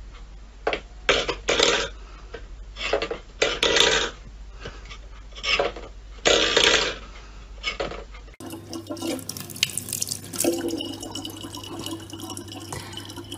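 Stainless steel bowl scraping and clattering on a wooden floor in short bursts as a cat paws at it. About eight seconds in, a thin stream of water from a tap trickles steadily into a plastic bottle, with a low hum beneath it.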